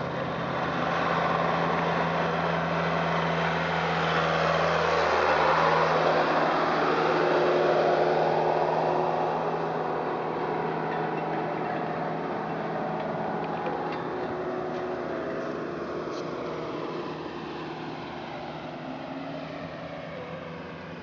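Jeeps driving past on a dirt road: a steady engine hum at first, then engine and tyre noise swelling as a vehicle passes close, loudest about six to eight seconds in, then fading as the vehicles draw away.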